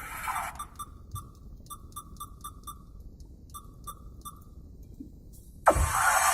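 Music playing through JBL coaxial car door speakers inside the car: a quiet passage of short electronic pinging blips, then the full track comes in loudly and suddenly about five and a half seconds in.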